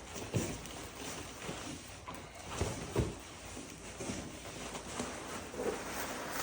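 Light knocks and rustling of a turbocharger and its packaging being handled and unpacked, with a sharper knock about three seconds in.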